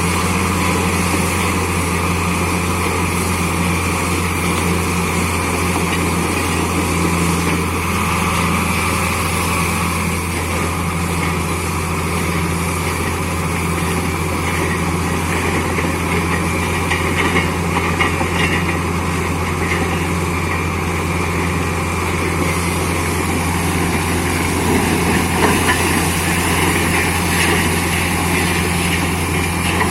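Borewell drilling rig's engine and air compressor running steadily, a loud low hum under a continuous rushing noise, with brief louder rattles a few times.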